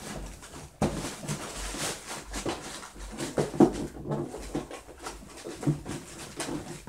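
Cardboard box and plastic packaging rustling and crinkling as hands dig through a shipping box, a run of irregular crackles and scrapes.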